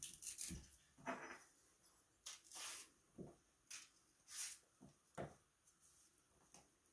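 A series of short, faint rustles and clicks as a banana is taken from the bunch and peeled.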